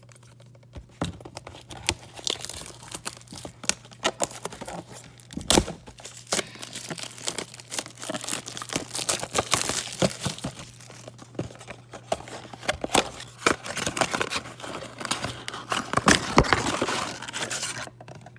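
A cardboard blaster box of trading cards being torn open and emptied: irregular tearing, crinkling wrapper and rustling packs, with many small sharp clicks and scrapes. A faint steady low hum runs underneath.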